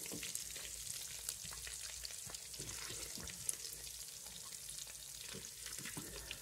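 Pork pieces sizzling in hot rendered fat in a multicooker bowl on its fry setting: a steady hiss dotted with crackles and scattered spitting pops.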